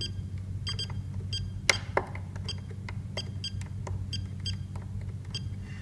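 Scroll roller of an Avionic 10-channel RC transmitter being turned, giving a quick irregular run of short, sharp ticks, about three to four a second, as the cursor steps through menu items; one tick about 1.7 s in is louder. A steady low hum runs underneath.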